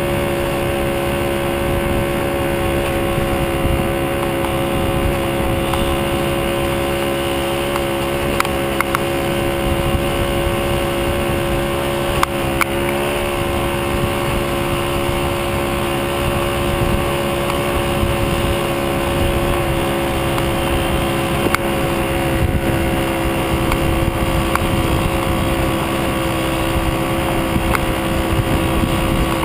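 VeloSoleX moped's small two-stroke engine running steadily at cruising speed, a constant droning whine that holds the same pitch. A couple of brief knocks come about a third of the way in.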